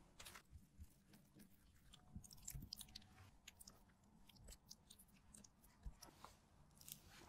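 Faint, soft wet clicks and squishes of food being worked by hand: tiramisu cream squeezed from a piping bag into a tart shell, then thick strawberry jam spread over it with a spatula.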